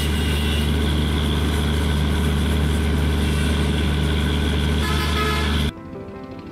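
Diesel-electric train locomotive's engine running steadily, a deep, even hum with no change in pitch. It cuts off suddenly near the end, leaving soft music.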